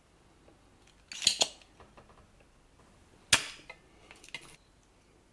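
Spring-loaded solder sucker (desoldering pump) at work on a through-hole joint: a couple of sharp clicks about a second in, then a loud snap of the plunger firing a little past three seconds in, as it pulls molten solder off the pad.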